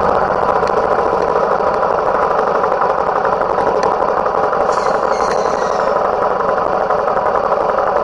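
A motor vehicle's engine running with a steady, unchanging drone.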